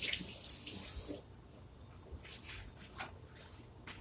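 Water running from a tap as hands are rinsed, shutting off about a second in, followed by a few faint short rustles and taps.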